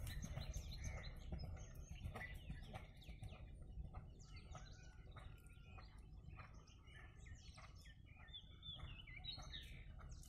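Small birds chirping repeatedly, in short quick calls, over a faint low rumble that eases off over the first few seconds.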